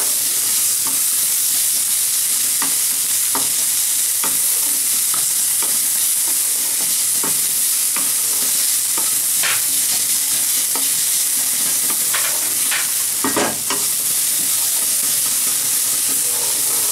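Sliced onions and garlic sizzling steadily in hot oil in a kadai, with a wooden spatula scraping and tapping against the pan every second or so as they are stirred, several strokes close together about twelve to thirteen seconds in.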